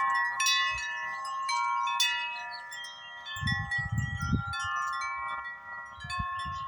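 Grace Note wind chimes ringing in the wind: tuned tubes struck again and again by the striker, many clear overlapping tones that hang and fade between strikes. A low rumble comes in about halfway through.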